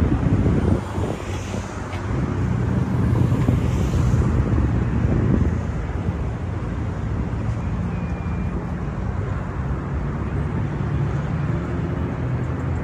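Street traffic, engines running, with wind buffeting the microphone. The wind rumble is strongest in the first half, then gives way to a steadier engine hum.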